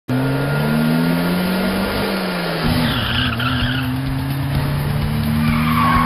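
Car engines running hard as two cars speed along, with tyre squeals twice: once about three seconds in and again near the end.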